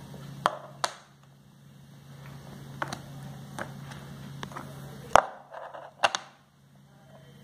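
Scattered clicks and taps as the flat tiles of a Pythagoras theorem puzzle model are picked up and set down on its board, the loudest about five seconds in.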